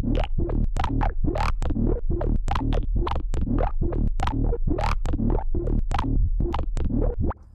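Electronic beat with a deep, steady bass, played through FabFilter Volcano 3's filter. A step sequencer with per-step glide moves the filter, so the hits, about four a second, sweep up and down in tone. It stops suddenly shortly before the end.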